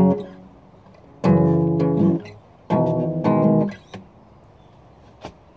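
Steel-string acoustic guitar being strummed: two chords about a second and a half apart, each ringing about a second before it is damped. A small click comes near the end.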